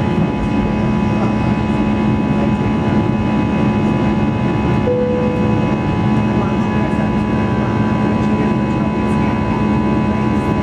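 Airbus A320's jet engines heard from inside the cabin: a loud, steady drone with a constant whine of several steady tones. A short tone sounds once about halfway through.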